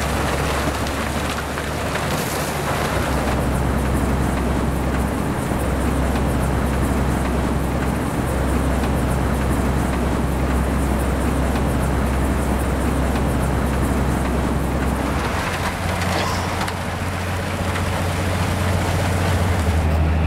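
Railway rotary snow plow at work: a steady low engine drone under a constant hiss of snow being churned and thrown. About fifteen seconds in the drone changes to a slightly higher pitch.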